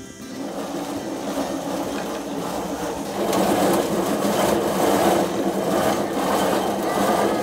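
Grape crusher-destemmer running steadily as bunches of grapes are fed through and crushed; it gets louder about three seconds in.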